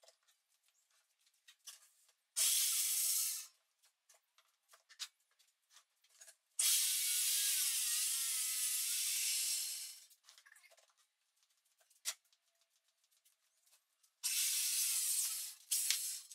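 Corded circular saw running and cutting through a plywood sheet, its motor pitch wavering under load: a short burst about two seconds in, a long cut of about three and a half seconds in the middle, and two more short runs near the end. Light clicks and knocks of handling come in between.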